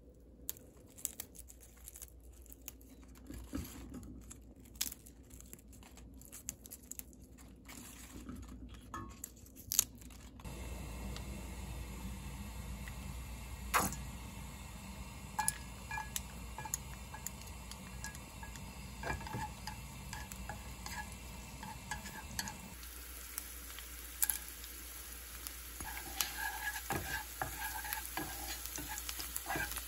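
Sparse light taps and clicks of handling at first, then a steady frying hiss from a nonstick frying pan of heating olive oil. Later sliced garlic and dried peperoncino chilies sizzle in the oil, with scattered clicks of stirring.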